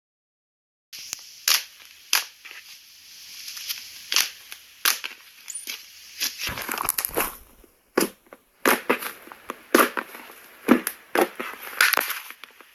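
Slime being squeezed and poked, starting about a second in, with many sharp pops and crackling, squishy noises.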